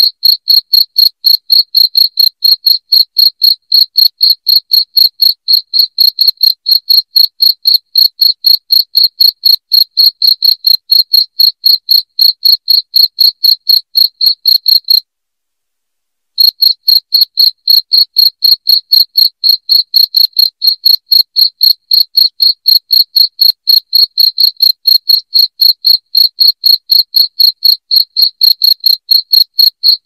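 Cricket chirping steadily in a high, clear pitch, about three chirps a second, with a break of about a second and a half halfway through.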